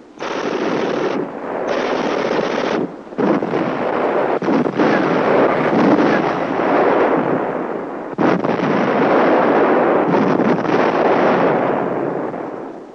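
Battle sound on an old newsreel soundtrack: continuous machine-gun fire mixed with other gunfire, broken by a few short pauses and dying away near the end.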